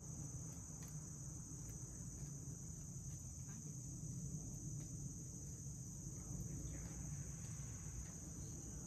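Steady high-pitched chorus of insects, an unbroken shrill drone, over a low outdoor rumble.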